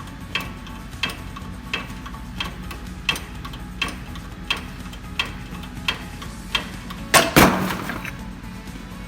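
Regular sharp metallic clicks, about one every 0.7 seconds over a low steady hum, while a pump shaft is pressed out of its 6312 deep groove ball bearing. A louder clattering knock with some ringing comes about seven seconds in.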